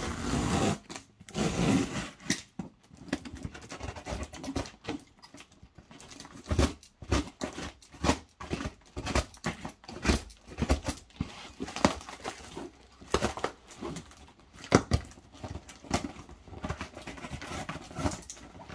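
Box cutter slitting the packing tape on a cardboard shipping box, with irregular scrapes, taps and rustles as the cardboard is handled; near the end the cut flap is pried up.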